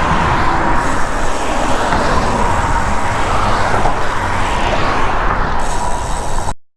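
Steady wind rumble on a cyclist's camera microphone, mixed with passing road traffic, cutting off suddenly near the end.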